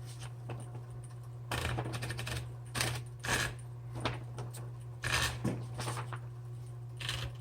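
Smith Corona Electra 120 electric typewriter's motor humming steadily, with irregular paper rustles and clicks as a sheet is fed around the platen and catches on something, here the paper guide.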